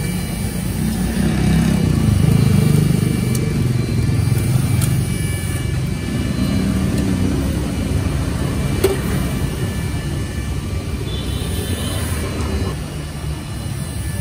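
Street traffic: motorbike and car engines going by, a steady low rumble that swells about two seconds in.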